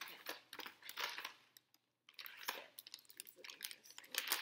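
Plastic snack packages being handled and a pouch being opened: irregular crinkling and rustling in short bursts, with a pause in the middle.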